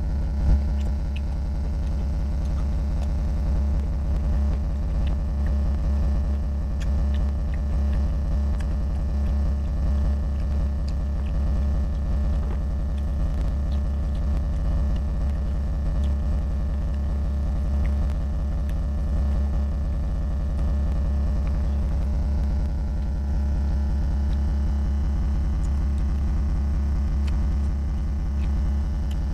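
A steady low hum runs throughout, louder than anything else, with faint scattered clicks from a hand mixing rice and pork curry on a metal plate and from chewing.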